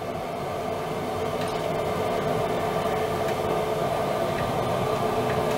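Automatic cat litter box's motor turning its rotating drum: a steady whirring hum that slowly grows a little louder.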